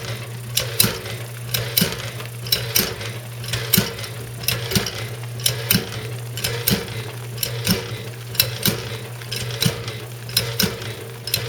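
1912 Easy washing machine running: a steady hum with a sharp clack about once a second and lighter clicks between, as its agitator goes up and down in the copper tub.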